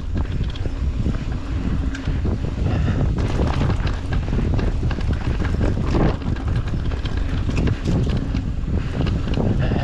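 Wind buffeting a GoPro's microphone during a downhill mountain bike ride, with the bike rattling and knocking as its tyres run over dirt and rock.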